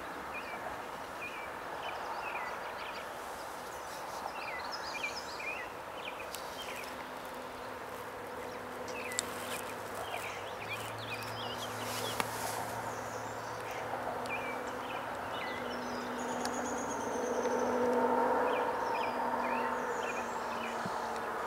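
Small birds chirping and calling repeatedly in short notes over a steady outdoor hiss. A low steady hum comes in after several seconds and swells near the end.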